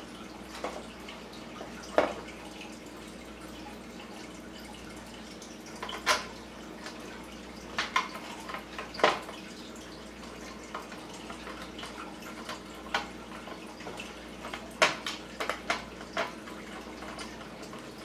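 Scattered sharp clicks and taps from a screwdriver and small screws against the NVR's sheet-metal case as the hard drive is screwed in from underneath, over a steady low hum. The clicks come irregularly, a few at a time, with the loudest about 2, 6, 9 and 15 seconds in.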